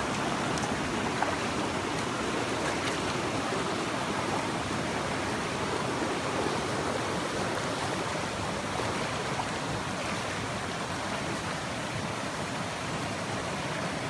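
Shallow mountain stream flowing over rocks and pebbles, a steady rush of water.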